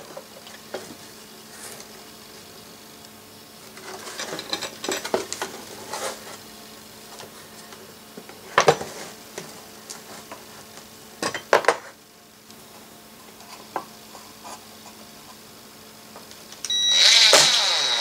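Light knocks and clatter of panels and parts being handled, then near the end a cordless drill-driver runs for about a second and a half, driving a short screw into the panel.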